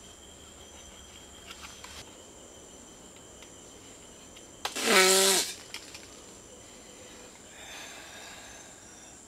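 A person's short, loud, breathy vocal outburst about five seconds in, lasting under a second. It sounds over a steady background of insects chirring.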